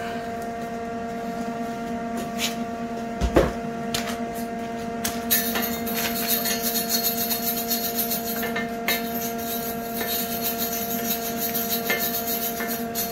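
Hand wire brush scrubbing fresh welds on the steel cart frame, a rhythmic scratching that starts about five seconds in, after a couple of sharp metal knocks. A steady electrical hum runs underneath.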